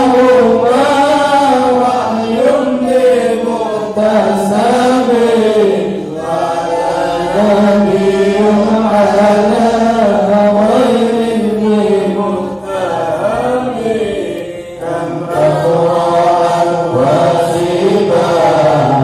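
Arabic devotional chanting: voices sing a melodic line with long held notes that bend in pitch. It pauses briefly twice about two-thirds of the way through.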